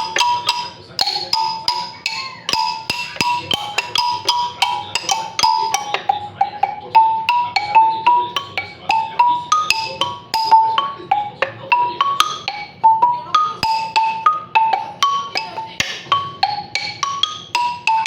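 High-pitched marimba played with mallets: a quick melody of single struck wooden-bar notes, several a second, each ringing briefly.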